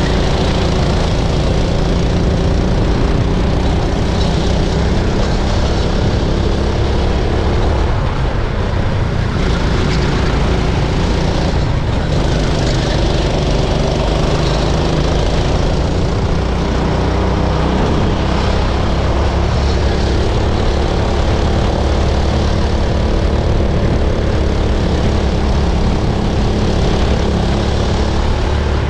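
Racing kart engine heard on board, running hard at high revs throughout. Its pitch dips and climbs again a few times with the throttle through the corners.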